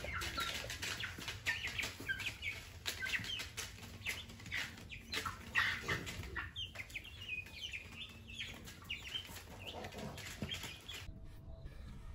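A small flock of young chickens clucking and cheeping over one another, with many short sharp taps mixed in. The calls stop about a second before the end.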